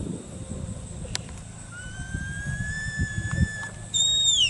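Sheepdog handler's whistle commands to a herding dog. One long whistle rises slightly, starting about two seconds in, and a loud high whistle near the end drops steeply in pitch.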